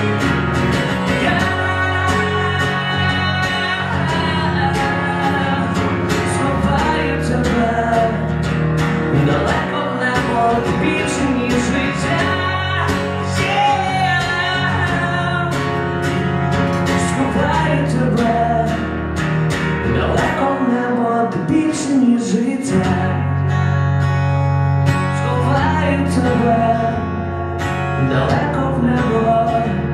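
A man singing live while accompanying himself on an acoustic guitar.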